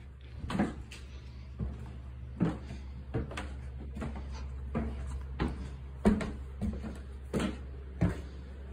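Footsteps climbing old basement stairs: a steady series of knocking treads, about one every 0.7 seconds.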